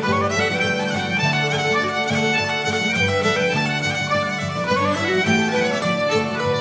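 Instrumental background music led by a fiddle melody with a few sliding notes, over a plucked-string accompaniment, at a steady level.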